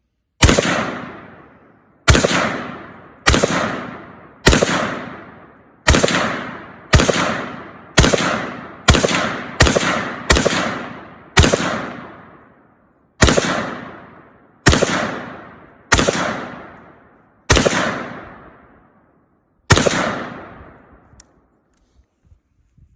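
Semi-automatic AR-pattern rifle firing sixteen single shots at an uneven pace, roughly one every one to two seconds, each shot trailing off over a second or more.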